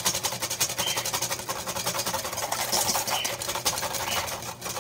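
Wire whisk beating egg yolks and lemon juice in a stainless steel bowl: a fast, steady rattle of the wires clicking and scraping against the metal as air is whipped into the yolks.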